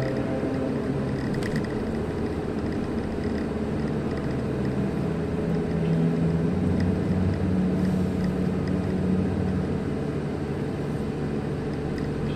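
Car driving, heard from inside the cabin: a steady engine hum and road noise, the engine's pitch shifting a little midway.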